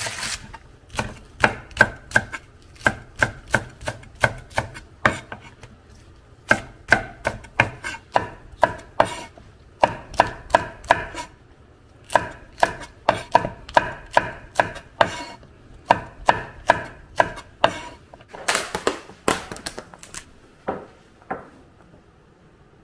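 Kitchen knife chopping green onions and green chili peppers on a wooden cutting board. The sharp knocks of the blade on the board come in steady runs of about three a second, with short pauses, and stop near the end.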